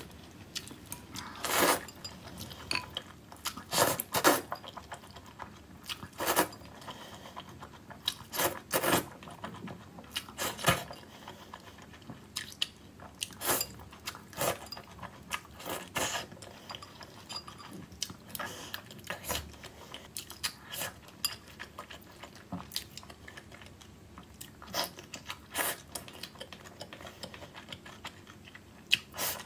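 Close-miked eating: a person slurping spicy noodles and chewing squid, with wet mouth and crunching sounds coming in irregular spurts every second or so.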